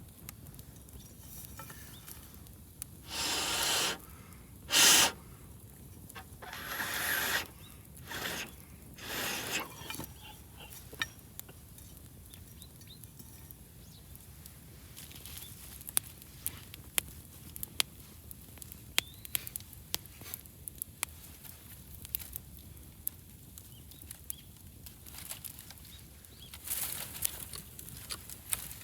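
Wood fire crackling, with many sharp single pops and snaps in the second half. A few louder, short noisy bursts come in the first ten seconds, the loudest about five seconds in, and another near the end.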